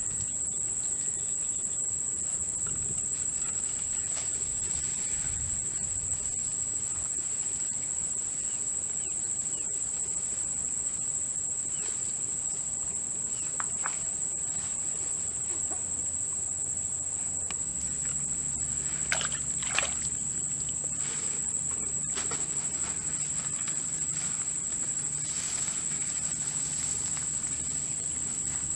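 Crickets keep up a steady, high-pitched trill. About two-thirds of the way through, a bird gives two short sweeping calls.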